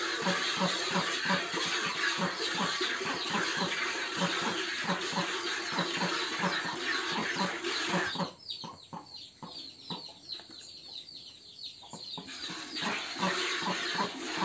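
Milk squirting into a plastic bucket as a cow is milked by hand, in a steady rhythm of about three squirts a second.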